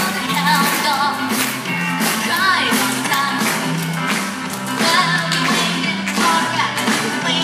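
Rock and roll music with a steady bass line and drums, with a boy singing into a microphone over it.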